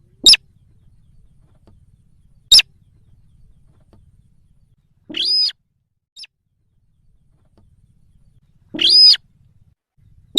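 Recorded calls of the bird known in Indonesia as sintar, played as a lure: sharp, high call notes a few seconds apart. Two are very short, and two are longer notes of about half a second each, with a faint short note between them.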